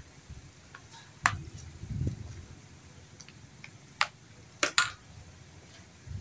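Plastic spoon stirring raw frog pieces and herbs in a plastic basin: soft mixing sounds with a few sharp clicks of the spoon against the basin, two of them close together about two-thirds through.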